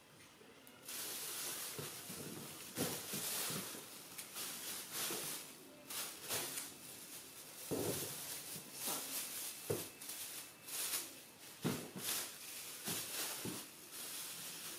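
Pig-tailed macaque gnawing kernels off a corn cob, with irregular crisp crunches and knocks, over a steady hiss that begins about a second in.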